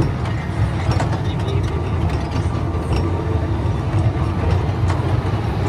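Jung Max circus train kiddie ride running: a steady low rumble of the cars rolling along the track, with a few faint clicks.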